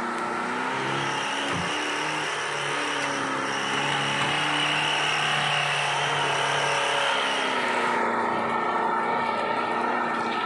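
Off-road 4x4's engine running hard under load as it climbs through thick brush, its pitch rising and falling with the throttle. A steady high whine sits over it from about four to eight seconds in.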